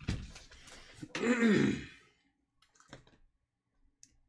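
A person's short wordless vocal sound, about a second in, rising and then falling in pitch. A few light clicks follow.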